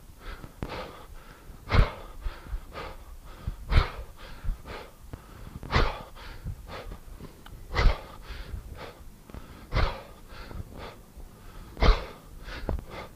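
A man breathing hard through one-arm kettlebell push presses, with a short forceful exhale about every two seconds and smaller breaths in between.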